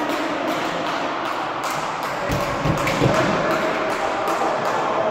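Echoing din of a floorball game in a large sports hall: a steady wash of hall noise with frequent sharp taps and clicks, about three or four a second, and a few low thuds a little past the middle.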